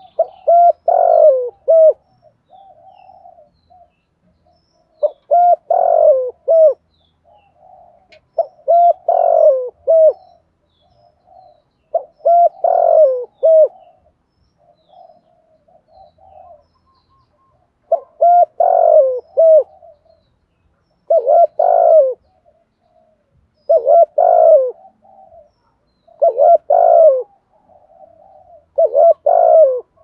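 Spotted dove cooing: a loud coo phrase every few seconds, with softer short notes in between and a longer pause around the middle.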